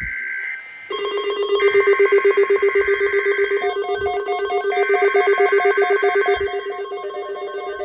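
Emergency Alert System alert: screeching two-pitch digital header data bursts alternate with gaps, overlapped from about a second in by a fast-pulsing warbling alert tone.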